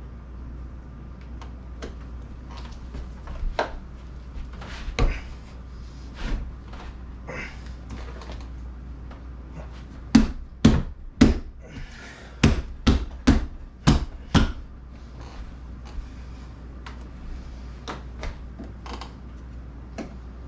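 Scattered knocks and clicks of hands and tools working on a Jeep windshield and its rubber seal, with a run of about eight sharp, louder knocks in quick succession around the middle, over a low steady hum.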